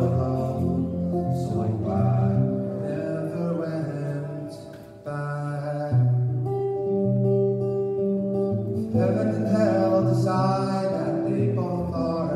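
Archtop guitar playing a song, with chords and single notes ringing on; the playing thins out to a brief lull about five seconds in, then comes back in.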